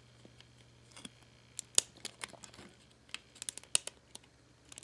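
Hard plastic pieces of a glow-in-the-dark dinosaur skeleton model clicking and tapping as they are handled and pressed together: scattered sharp clicks, the loudest a little under two seconds in, and a quick run of clicks about three and a half seconds in.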